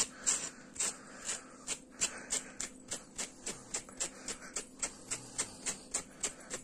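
Quick, repeated brush strokes through the brushed-out acrylic yarn hair of a crocheted amigurumi dog, a short scratchy swish about three times a second, fluffing the yarn into fur.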